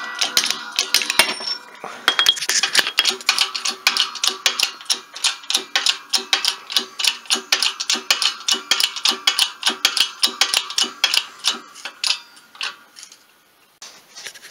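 Background music: held chord tones over a fast, even ticking beat, fading out near the end.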